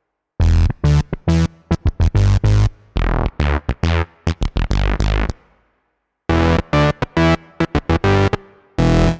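Roland FA-06/FA-08 workstation synth bass patches played as short, punchy riffs. Each patch is followed by a brief silence before the next one, and in the middle the notes have a bright tone that falls away on each note.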